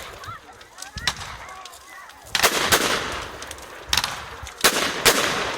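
Fireworks going off: a bang about a second in, then a quick run of crackling bangs from a little past two seconds, and more loud bangs near the end.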